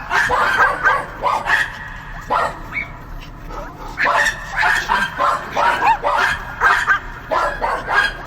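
Dogs barking and yipping in quick runs of short barks, easing off for a couple of seconds near the middle before picking up again.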